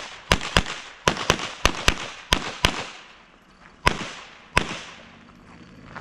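Pistol shots fired in quick pairs, the two shots of each pair about a quarter second apart: four pairs, then two single shots near the end, each bang with a short echo.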